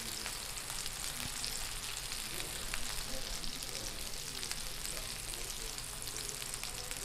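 Tomahawk steak searing on a hot flat-top griddle: fat and melted butter sizzle steadily with scattered small pops as butter is ladled over the meat.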